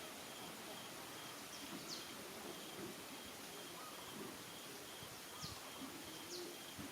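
Quiet outdoor background with a short high chirp repeating about twice a second, and a few brief, falling high-pitched animal calls.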